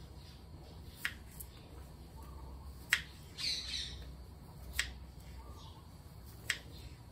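Kitchen knife slicing a cucumber on a plastic cutting board: a sharp tap of the blade on the board about every two seconds, four times. There is a brief scratchy noise about three and a half seconds in.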